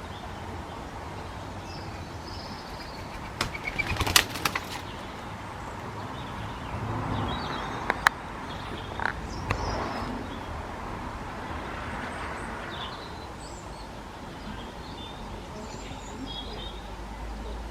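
Garden birds chirping and singing faintly, with a few sharp clicks and rustles: a cluster about four seconds in and single ones around eight and nine seconds.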